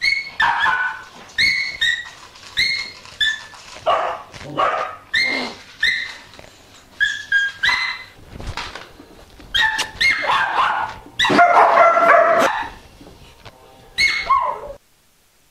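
A large white bulldog-type dog whining and yelping in short, high-pitched cries, repeated every half second to a second, with a longer, louder outburst about eleven seconds in, while it is held by its collar.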